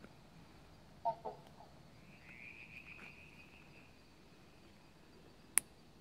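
Night-time animal calls, quiet: a short, croaky double call about a second in, then a buzzing trill lasting about a second. A single sharp click sounds near the end.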